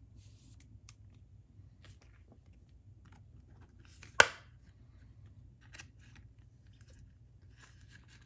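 Trading card handled with thin plastic sleeves and a rigid toploader: faint rustling and light ticks, with one sharp click about four seconds in.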